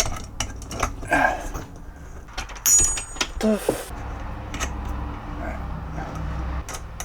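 Irregular clicks, taps and rubbing of a closet ceiling light fixture being handled and fitted, with a brief squeak about three seconds in.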